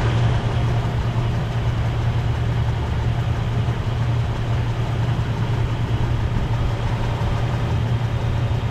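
1998 Jeep Cherokee's engine idling steadily, heard close, with a strong low hum.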